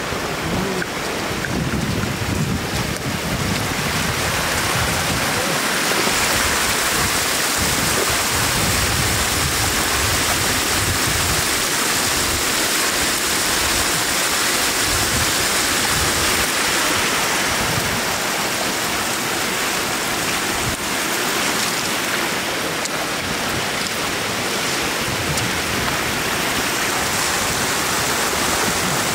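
Floodwater rushing steadily over the edge of a road and splashing down into shallow water, a continuous loud wash.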